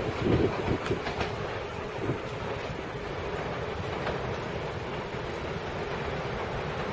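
Taiwan Railways push-pull Tze-Chiang express moving away along the track. Its wheels clack over the rail joints several times in the first second or so, then it settles into a steady rolling rumble.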